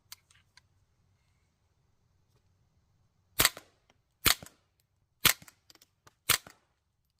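Suppressed .22 LR semi-automatic rifle (Ruger 10/22 Charger with a Banish 22 suppressor) firing subsonic 45-grain suppressor loads: four quiet shots about a second apart starting about three and a half seconds in, and a fifth right at the end, each followed by small ticks.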